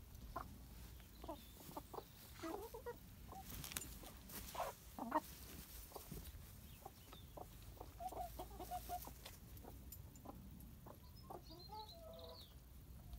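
Backyard hens clucking quietly and intermittently, with a quick run of short repeated clucks about eight seconds in.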